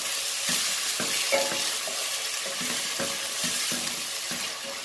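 Freshly added sliced onions sizzling in hot oil in a stainless steel pot, stirred with a spatula that scrapes the pot in short strokes about twice a second over a steady hiss.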